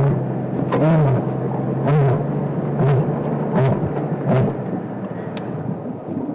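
Lioness roaring: the end of a roar bout, trailing off into about five short grunting calls that come closer together and fade away.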